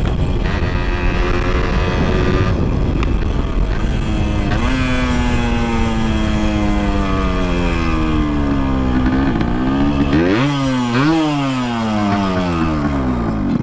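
Yamaha RX-King two-stroke single-cylinder motorcycle engine running on its original exhaust, its pitch sinking slowly as the revs drop, then two quick throttle blips about ten seconds in before it falls again. Heavy wind rumbles on the microphone throughout.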